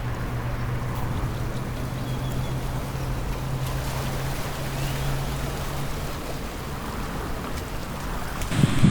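Pacific Ocean surf washing steadily against the seawall, with a steady low hum under it that fades out after about six and a half seconds. Wind buffets the microphone near the end.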